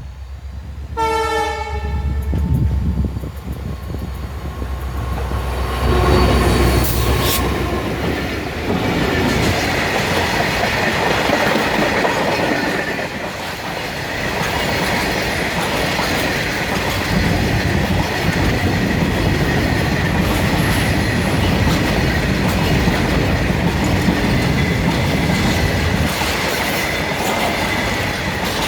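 Goods train passing: a short horn blast about a second in, then the locomotive's heavy low rumble going by, followed by a long run of freight wagons running past with a steady high-pitched wheel squeal.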